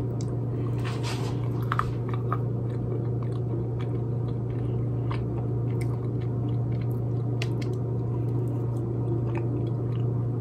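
A person chewing a mouthful of soft, sticky chickpea cookie dough, with a spoon scraping and clicking in the bowl about a second or two in and a few light clicks later, over a steady low hum.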